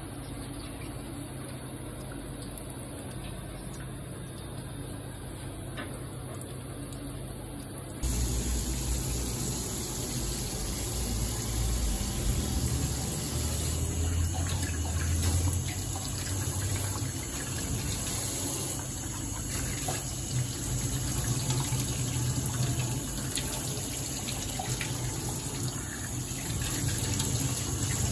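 A steady low hum, then about eight seconds in a kitchen tap starts running into a stainless steel sink, and the water keeps splashing over a whole squid as it is rinsed and rubbed by hand under the stream.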